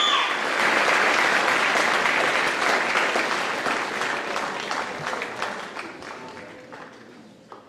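Audience applauding: dense clapping that thins out and fades away over the last couple of seconds.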